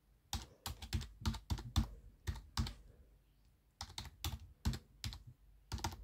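Typing on a computer keyboard: irregular clicking keystrokes as a search is typed, with a short pause about three seconds in.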